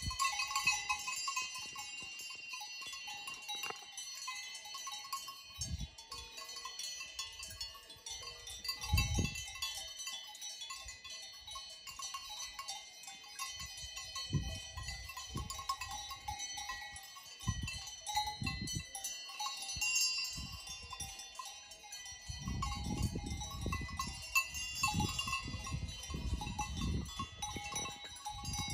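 Cowbells on grazing alpine livestock clanking and ringing irregularly as the animals move. Bursts of low rumble come and go, heaviest near the end.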